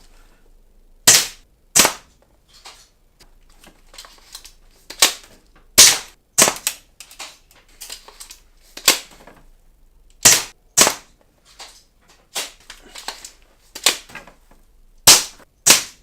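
Classic Army CA870 spring-powered pump-action airsoft shotgun firing a string of shots: sharp, loud cracks, several in quick pairs, with lighter clacks between them.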